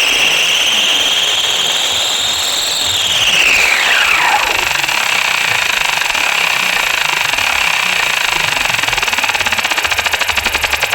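Large DJ sound system playing a sound-check effect: a high, whistle-like tone that climbs slightly and then swoops down in pitch about three to four seconds in, followed by a steady hiss and a rapid stuttering pulse that builds near the end.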